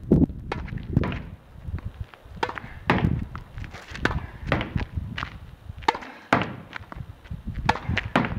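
Tennis ball hit hard with a racket against a practice backboard in a continuous rally: a string of sharp pops from the racket strikes, the ball smacking the wall and bouncing on the asphalt court.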